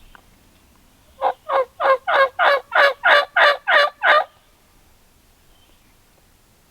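A run of about ten turkey yelps, about three a second, growing louder over about three seconds and then stopping.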